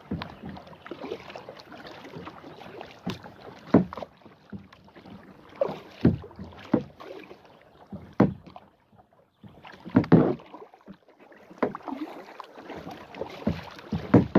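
Kayak paddle strokes: the blade dips and splashes into the water every second or two, irregularly, some strokes coming in quick pairs, with water swishing between them.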